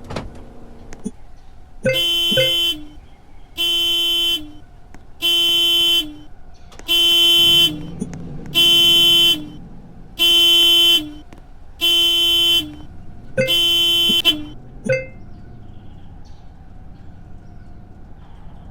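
Toy RC car's sound-effect panic alarm: a car-horn honk blaring eight times, each about 0.8 s long and repeating about every 1.6 s, with the pitch stepping down slightly at the end of each honk. Short chirps come just before the honks start and again just after they stop.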